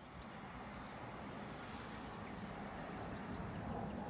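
Outdoor background by a railway line: a steady low rumble that grows slightly louder toward the end, with birds chirping and a faint steady high-pitched whine.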